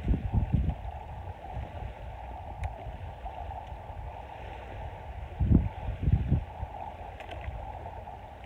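Wind buffeting the microphone in gusts, one at the start and another about five and a half seconds in, over a steady rush of wind and light surf on the beach.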